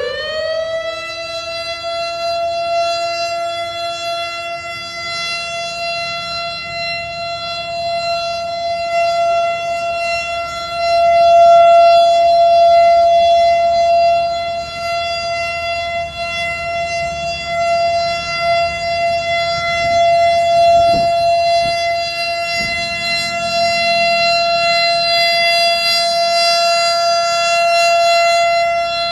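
Pole-mounted outdoor warning siren with a rotating multi-horn array, sounding one steady tone that comes up to pitch almost at once. It grows louder and softer as the horns turn.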